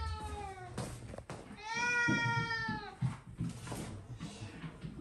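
Munchkin cat meowing: one meow trails off downward at the start, then one long meow about a second and a half in, dropping in pitch at its end. The cat is asking at the front door to be let out.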